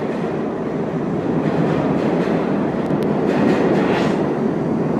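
Steady, loud rumbling noise, swelling a little toward the middle, with a few faint clicks.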